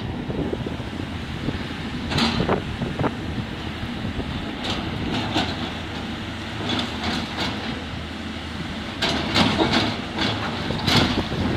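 SANY SY210 excavator's diesel engine running steadily, with the steel bucket clanking and scraping against broken stone in irregular knocks as it digs into the pile.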